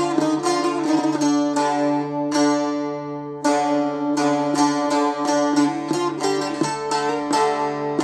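Solo bağlama (Turkish long-necked saz) playing a quick plucked folk melody over steadily ringing drone strings. About two seconds in, one note is held and rings out before the fast plucking resumes.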